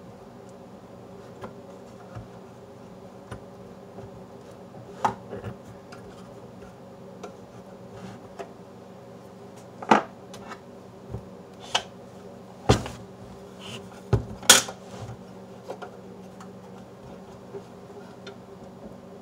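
Clicks and knocks of a Super Technicolor 580 instant projector's casing being handled and turned over on a tabletop, scattered at first, with a run of sharper knocks in the second half.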